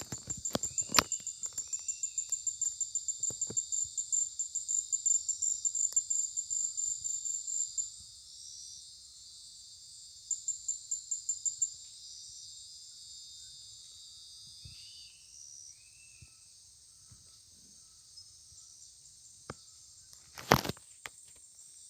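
Insects: a steady high-pitched insect drone, with a cricket-like insect chirping in rapid pulses, about five a second, through the first eight seconds and again briefly around ten seconds in. A few short chirps sound twice, and there is a sharp knock near the end.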